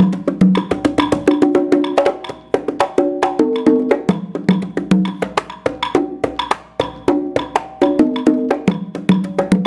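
Fisher-Price toy conga drums playing a fast rhythm of short pitched taps, several a second, the pattern running on in phrases a couple of seconds long.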